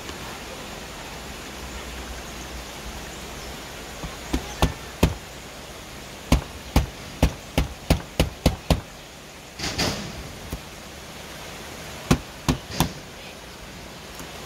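A series of sharp knocks, like hammer strikes: three, a pause, then a quick run of about eight at roughly three a second, a short rushing noise, and three more knocks near the end.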